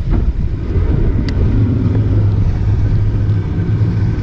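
Small fishing boat's engine running with a steady low hum, over wind rumbling on the microphone. A single sharp click comes about a second in.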